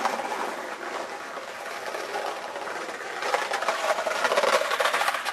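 Skateboard wheels rolling over paving stones: a steady, rapid rattling clatter that grows louder and busier a little past halfway.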